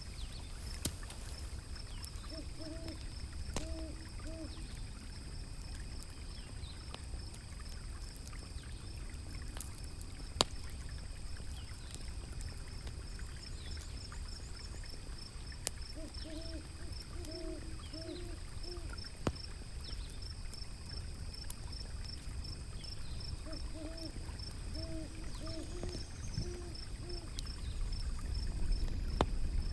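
Owl hooting in three short series of a few hoots each, over scattered sharp pops and crackles of a wood fire and a steady low rumble of river water that swells near the end. A fast, even high-pitched chirping runs underneath.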